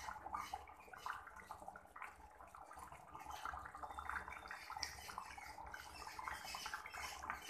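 Fish curry gravy bubbling in a kadai as it simmers, a faint irregular crackle of small bursting bubbles over a low steady hum.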